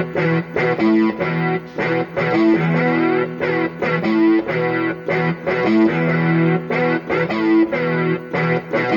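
Electronic music track with a heavily distorted, guitar-like lead played in choppy, rhythmic stabs that cut in and out.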